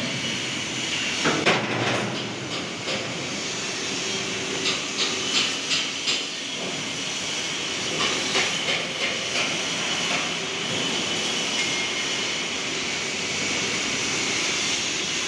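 Boatyard workshop noise: a steady hiss with sharp metallic knocks, including a quick run of about five knocks near the middle and a few more later.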